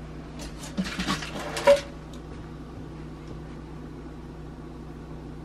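Metal baking sheet being moved over gas-stove grates: a quick series of knocks and clatters ending in one ringing metallic clink about two seconds in. A steady low hum runs underneath.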